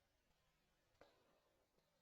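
Near silence, with one faint short click about a second in.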